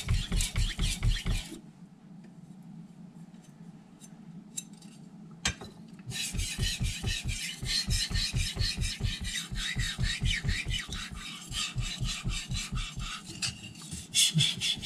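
A carbon-steel (Aogami #2) knife blade stroked back and forth on a Naniwa Snow White 8000-grit whetstone: a quick, even run of rasping strokes, several a second. The strokes pause about a second and a half in, and a single knock comes just before they start again about six seconds in.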